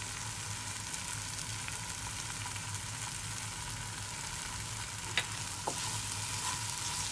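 A sautéed pepper, tomato and onion mixture sizzling steadily in a frying pan, with a wooden spatula stirring it and tapping the pan twice about five seconds in.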